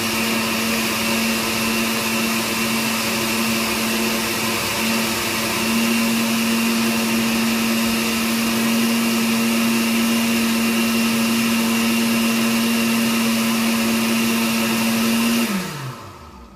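Countertop blender motor running steadily at high speed, blending a thin flour-and-water paste. About a second before the end it is switched off and its whine falls in pitch as the motor spins down.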